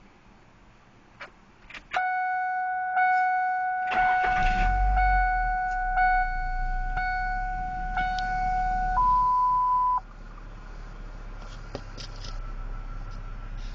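1999 Ford Ranger's 2.5-litre four-cylinder engine started from the cab. A dash warning chime rings about once a second from about two seconds in, the starter cranks briefly a little after four seconds, and the engine catches and settles into a low idle. The chime stops about nine seconds in, followed by a single higher one-second beep over the idle.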